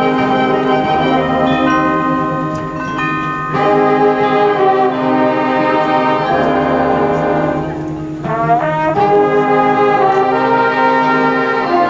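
High school marching band's brass section playing held chords that change every few seconds, with a quick rising run about eight seconds in before the full chords return.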